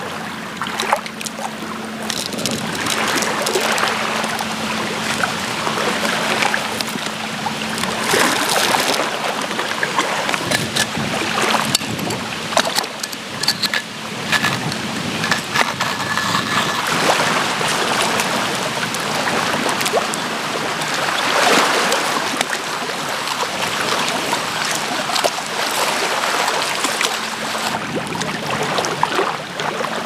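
Stainless steel hand-crank coffee grinder crushing whole coffee beans: a crunching grind with many small cracks, over lake water lapping at the shore.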